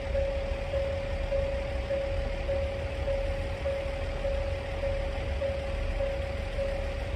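KiHa 48 diesel railcars idling with a steady low rumble, under a station warning tone that pulses evenly about twice a second.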